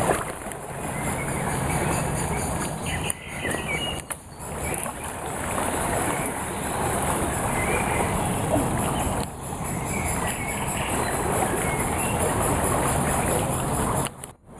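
Fast-flowing floodwater of the Weiße Elster river, a steady rushing of water that dips briefly a few times.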